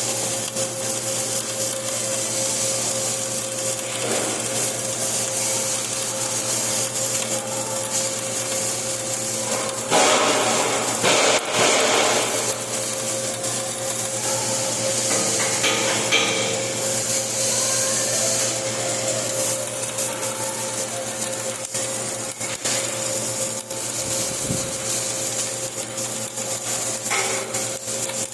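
Flux-cored arc welding: the arc crackles continuously over a steady electrical hum from the welding machine. The crackle gets louder for a couple of seconds about ten seconds in.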